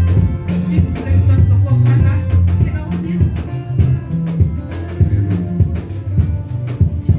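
Upbeat music with a stepping bass line and fast, steady percussion.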